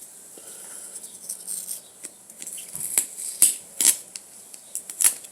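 Plastic slime container being handled and opened, with scattered crackling and sharp clicks, the loudest clicks coming in the second half.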